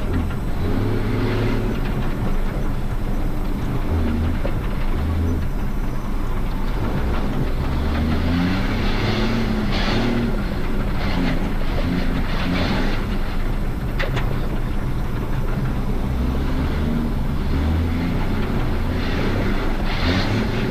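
Inside the cab of a KAMAZ rally truck driving over rocky ground: the diesel engine runs under load, its note rising and falling, while the cab rattles and clatters over the stones. A sharp knock comes about fourteen seconds in.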